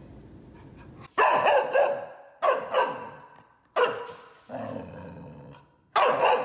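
Golden retriever puppy barking, about five loud single barks with pauses between, in protest at being brushed.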